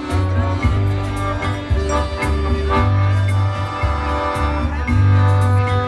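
Live polka music from two piano accordions and a stage keyboard, over a low bass line that changes note about once a second and a regular drum beat.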